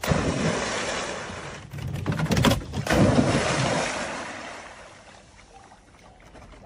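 A dog leaping into a lake: water splashing and churning, with a few sharp slaps in the middle. The sloshing fades away over the last few seconds.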